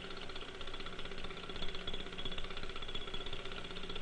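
A steady hum with an even hiss and a few fixed tones; nothing starts, stops or changes.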